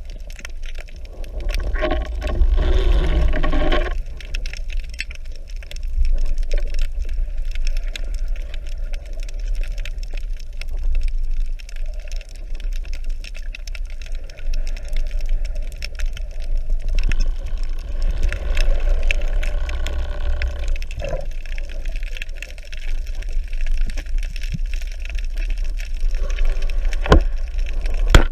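Underwater sound of water moving over the camera, a steady low rumble with a fine scatter of clicks throughout. Louder bubbling passes by about two seconds in and again around eighteen seconds.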